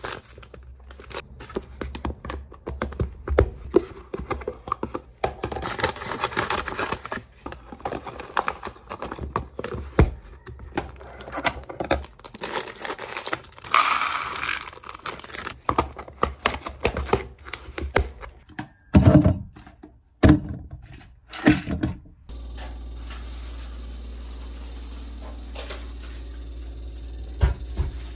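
Plastic packets crinkling as breadcrumbs and then seeds are poured into plastic food containers, with many small clicks and knocks of containers and lids on the counter and a few louder knocks. For the last few seconds a steady low hum runs instead, with one knock near the end.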